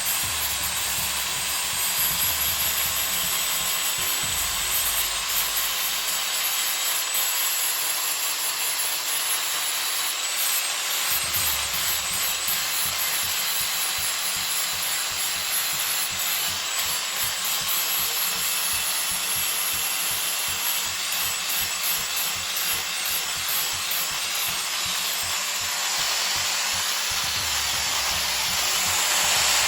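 Electric power sander running steadily against the wood of a large tree root, a continuous grinding noise.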